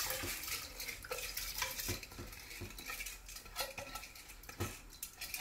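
Soaked rice and green gram being tipped and scraped out of a glass bowl into a pressure cooker of water, with scattered clinks and knocks of the bowl against the cooker.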